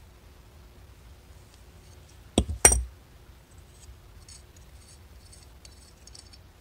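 Two sharp metallic clacks about a third of a second apart as a steel adjustable wrench comes off the carburetor and is set down. Then faint small ticks as fingers turn the brass main jet out of the aluminium Mikuni carburetor body.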